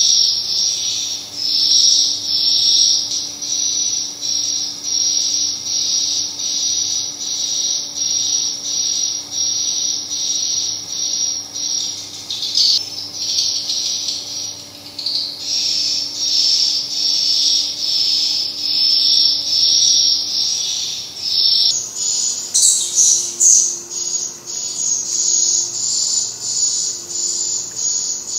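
Tweeter speakers in a swiftlet house playing a recorded edible-nest swiftlet call, which lures the birds in to roost and nest. It is a high, rapidly pulsing chirping repeated about twice a second, and it shifts a little higher in pitch about three-quarters of the way through.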